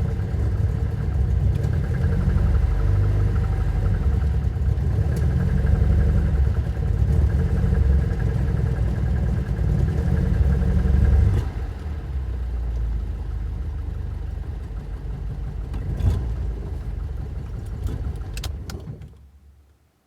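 Alfa Romeo engine running cold, uneven and rising and falling in level with the throttle. About eleven seconds in it drops suddenly to a quieter, steadier idle. Near the end it dies away as the engine is switched off, with a couple of sharp clicks.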